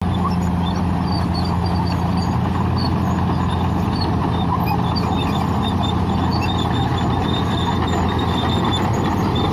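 Bulldozer's diesel engine running steadily and loud, with short high squeaks over it.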